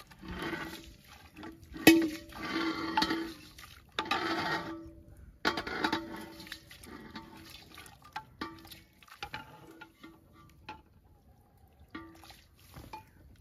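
Ladle stirring and scooping hot liquid in a metal cauldron: several bursts of sloshing and pouring, with the ladle scraping and clinking against the pot so that it rings. A sharp metal clink about two seconds in is the loudest sound.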